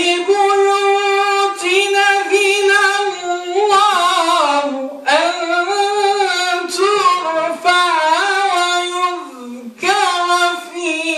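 A man's voice reciting the Quran in melodic chant (tajwid), in the Warsh reading, holding long ornamented notes. Three phrases, with short breaths about five and ten seconds in.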